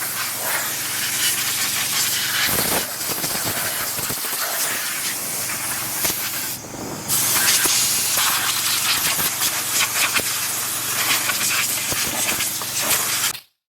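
Compressed air blasting from an air gun fed by a compressor: a steady, loud hiss. The blast eases for a moment about halfway through and cuts off suddenly near the end.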